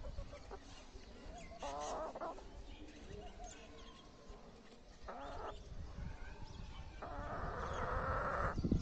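Pet chickens clucking softly, with louder calls about two seconds in and about five seconds in, and a drawn-out call of about a second and a half near the end.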